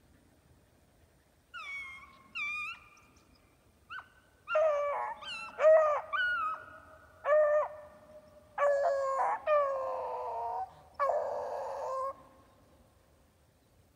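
A series of about a dozen high-pitched animal calls, short cries with some falling in pitch, coming in quick runs with short pauses between.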